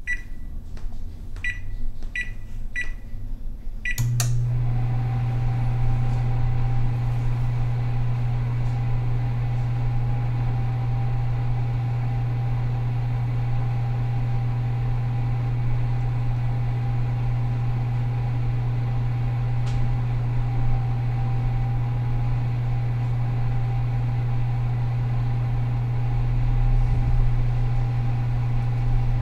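Microwave oven: a few short keypad beeps, a click about four seconds in as it starts, then a steady low hum with a fainter steady whine while it runs.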